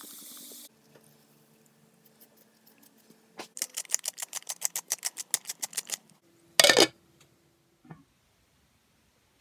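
7up soda pouring into a slow cooker, stopping under a second in. Then a pepper mill ground over the pot gives a fast even run of clicks, about eight a second, for over two seconds. It is followed by the slow cooker's glass lid set down with a short clatter, the loudest sound, and a light knock near the end.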